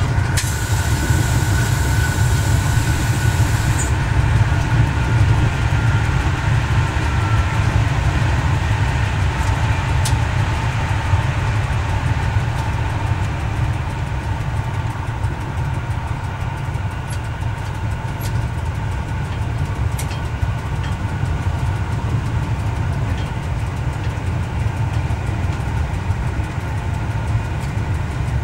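Steady running noise heard from the driver's cab of a Y1 railcar rebuilt with Volvo diesel engines: the engine drones steadily under the wheel and rail noise while the railcar runs at speed. A high hiss in the first few seconds cuts off sharply.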